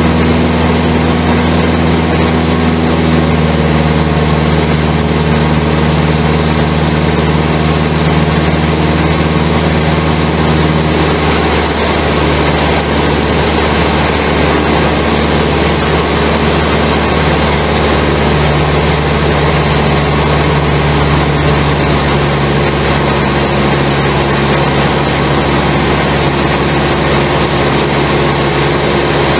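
Cessna 172's piston engine and propeller running steadily in flight, heard loud from inside the cockpit. The engine note shifts slightly about eleven seconds in.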